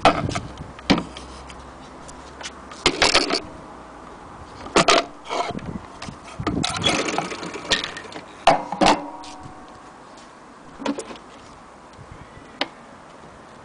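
Irregular knocks, rustles and scrapes of handling, coming in separate short bursts every second or two, with no steady motor or stitching sound.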